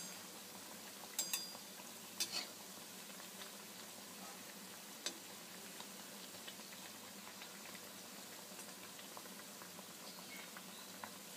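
Urad dal fritters deep-frying in a wok of hot oil, giving a faint, steady sizzle. A slotted metal spatula clicks against the wok a few times in the first several seconds as the fritters are turned.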